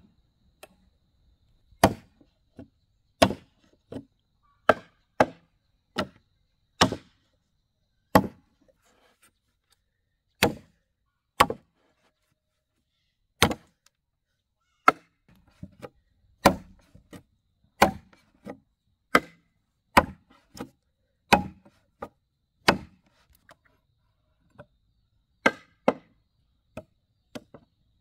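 A long run of sharp chopping strikes, one at a time, roughly once a second, with a couple of longer pauses.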